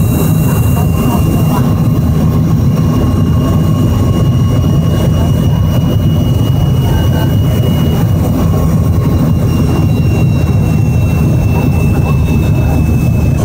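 Jet airliner cabin noise during the landing approach: a steady deep rumble of engines and airflow with a thin, high engine whine that sags slightly in pitch near the end.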